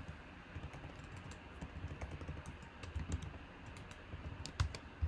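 Typing on a computer keyboard: scattered light key clicks, with a couple of louder clicks near the end.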